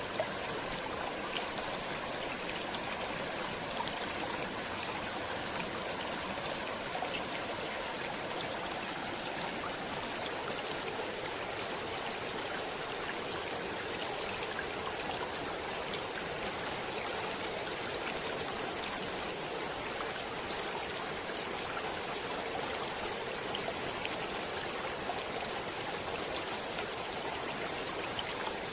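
Stream water flowing steadily, a continuous rushing hiss with small trickles and splashes.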